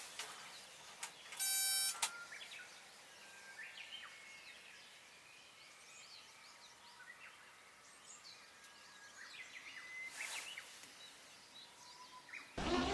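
Birds calling faintly and intermittently with short chirps and whistled glides. A loud, steady high tone with a buzzy edge cuts in briefly about a second and a half in.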